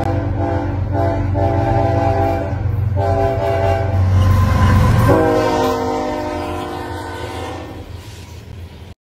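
Diesel locomotive's multi-chime air horn blowing several long blasts over the rumble of the engine and train. About five seconds in, the horn drops in pitch as the locomotive passes, then fades away, and the sound cuts off suddenly just before the end.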